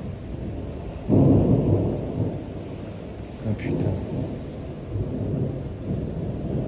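Thunder from a close lightning strike: a sudden loud clap about a second in, then low rumbling that rolls on in waves.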